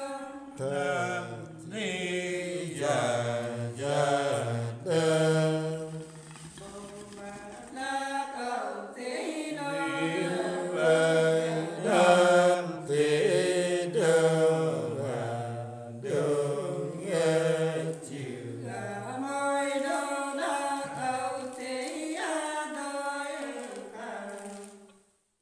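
Unaccompanied Nùng folk singing: voices drawing out long, wavering notes in a chant-like melody, stopping near the end.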